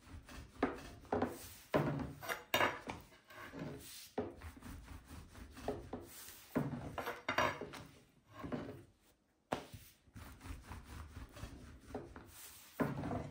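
A long thin rolling pin rolls yeast dough out on a floured wooden tabletop: repeated uneven strokes of the pin rubbing and knocking on the board as the dough sheet is stretched, with a brief pause a little past halfway.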